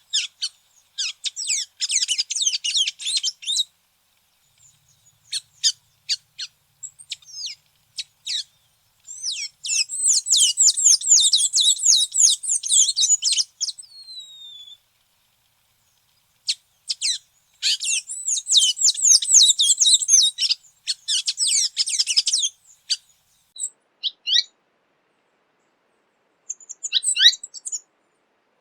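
Tanager song: bursts of rapid, high twittering notes, three long runs of a few seconds each with scattered single chips and short notes between them.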